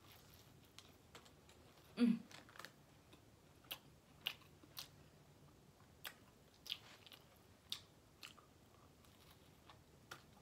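A person chewing a bite of a sub sandwich close to the microphone, with faint, irregular mouth clicks and crunches. A brief voice sound about two seconds in.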